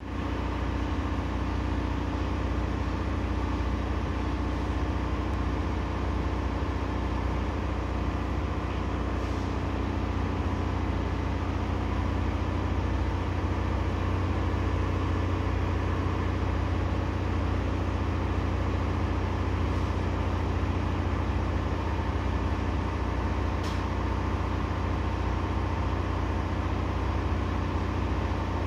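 A steady, unchanging low machine hum, like an appliance or ventilation unit running, with a couple of faint ticks.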